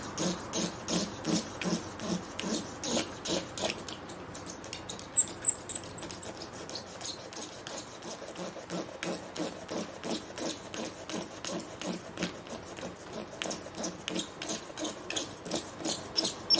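Razor-blade scraper held upright and drawn over windscreen glass in short rhythmic strokes, about three a second, shaving off cured windscreen-repair resin. A few louder strokes with a high note come about five seconds in.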